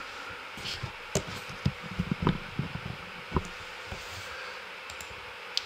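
Quiet room with a steady hiss and scattered small clicks and taps, about nine of them at uneven intervals.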